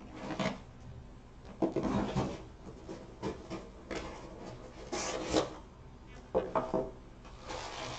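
A small cardboard box being opened and its contents handled: several separate short scrapes and rustles of cardboard rubbing.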